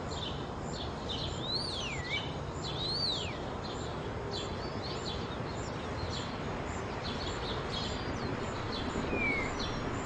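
Outdoor ambience of small birds chirping over a steady background hiss, with two calls that sweep up and then drop in pitch about one and a half and three seconds in.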